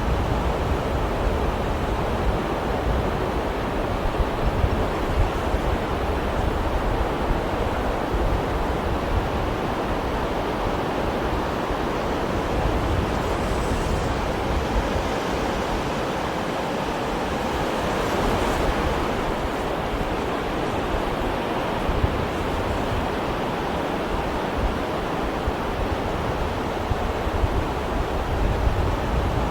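Sea waves washing ashore in a continuous rush of surf, rising and falling gently, with one brighter, hissier wash a little past the middle.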